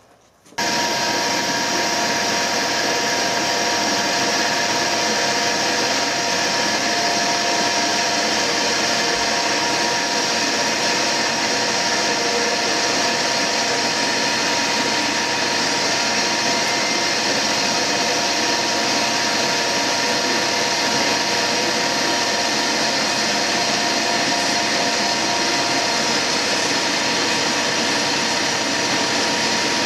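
Metal lathe running steadily, turning a bar down to diameter: an even machine noise with a steady whine, starting abruptly about half a second in.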